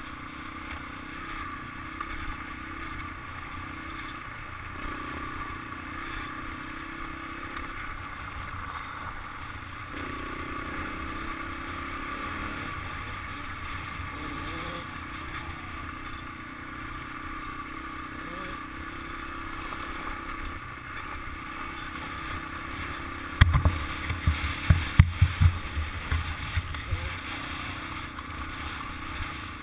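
Dirt bike engine running steadily at a cruising pace on a gravel trail, with low wind rumble on the microphone. About three-quarters of the way through comes a cluster of loud low knocks and rumbles.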